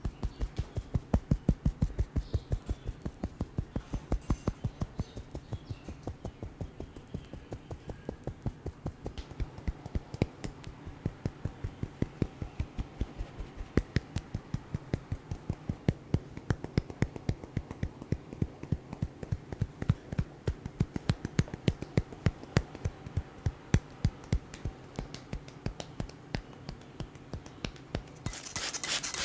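Hands tapping rhythmically on a head in a percussive head massage, about four strikes a second. Near the end it gives way to a dense rubbing sound.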